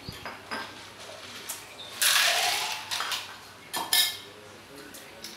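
Spoons and chopsticks clinking and scraping against ceramic and steel bowls during a shared meal, with a louder noisy stretch about two seconds in and a sharp clink near four seconds.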